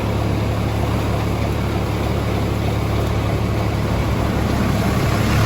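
High-pressure jetting truck's engine running with a steady low hum.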